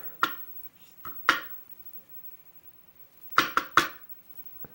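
Small metal lock parts and tools clinking and clicking as a gutted Ruswin lock's pins and springs are handled: a few scattered clicks, then three quick ones close together.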